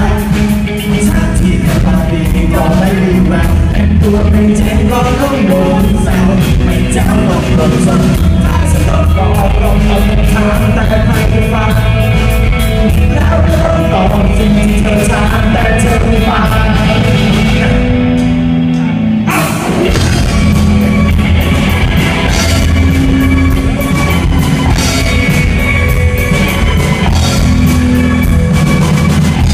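Live rock band playing loud: a male singer over electric guitars, keyboard and a drum kit. About two-thirds of the way through, the drums and cymbals drop out for a second or so, then the full band comes back in.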